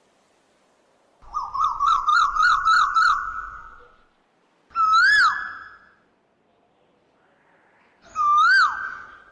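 Asian koel calling: a rapid run of about eight short rising whistled notes, then two single loud whistled notes that rise and then drop sharply, about three seconds apart.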